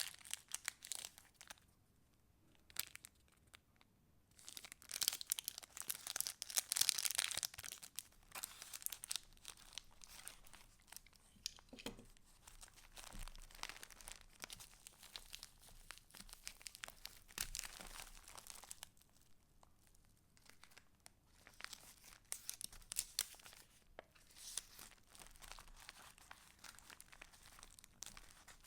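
Paper rustling and crinkling as the pages of a handmade junk journal are handled and turned, in uneven spells with short pauses and the loudest rustling about five to eight seconds in.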